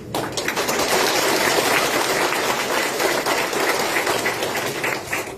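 Audience applauding, starting suddenly and thinning to scattered claps near the end.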